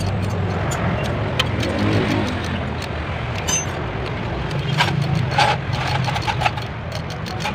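An engine running steadily in the background, with a few light metallic clicks and taps.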